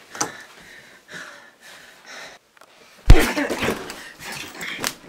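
Scuffling movement and breathing of people grappling, with one loud heavy thump about three seconds in, a second of rough shuffling after it, and a sharp knock near the end.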